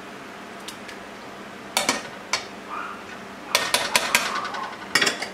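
Utensils clinking and tapping against a stainless steel pot of béchamel sauce: scattered sharp clicks, a few around two seconds in, a quick run of them around three and a half to four seconds, and a pair near the end.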